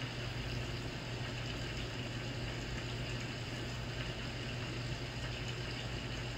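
Steady low hum over an even hiss of background noise, unchanging throughout: room tone from some running appliance.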